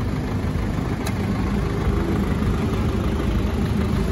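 Mazda Bongo's WL four-cylinder diesel engine idling steadily, with a single sharp click about a second in.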